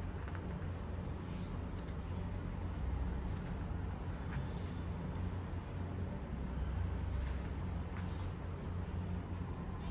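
A steady low hum, with a few brief rustles and scrapes of packaging being handled.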